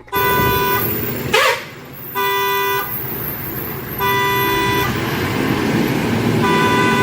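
Vehicle horn honking in four short blasts of the same pitch, about two seconds apart, over a continuous rumbling traffic-like noise, with a brief whoosh about a second and a half in.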